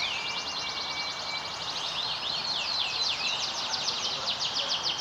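Domestic canary singing. A long steady whistled note runs for the first second and a half beneath a fast trill, followed by sweeping notes and a rapid trill of many short notes a second.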